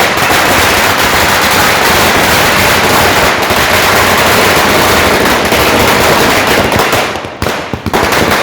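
Firecrackers going off in a dense, rapid crackle for about seven seconds, thinning near the end to a few separate bangs.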